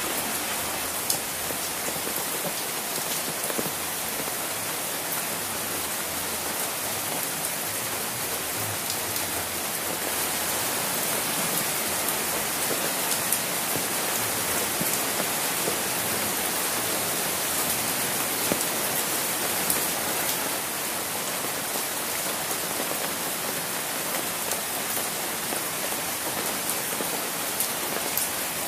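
Steady rain falling, a dense even hiss with now and then a single louder drop striking close by.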